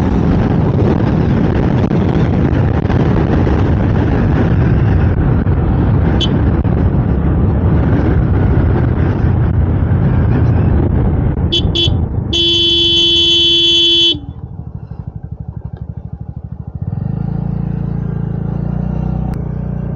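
A road vehicle on the move, with a loud, dense rumble of engine, road and wind. About twelve seconds in there are two short horn toots and then a steady horn blast of nearly two seconds. After that the sound drops quieter to a pulsing engine run.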